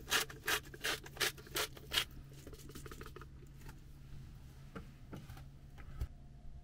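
Hand-twisted salt mill grinding salt crystals into a steel bowl, short rasping strokes about three a second that stop about two seconds in. A few light clicks and a soft knock follow near the end.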